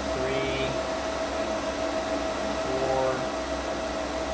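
Steady machine hum with one constant tone held throughout, like a fan or air-handling unit running. Faint voices come through twice, briefly, about half a second in and about three seconds in.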